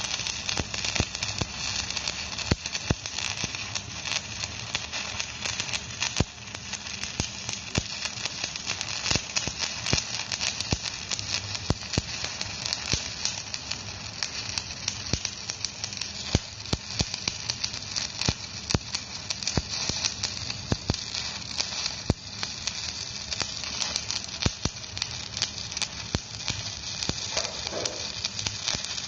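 Stick (shielded metal arc) welding arc burning steadily as a weld bead is laid on an excavator bucket adapter: a dense, even crackle with frequent sharp pops.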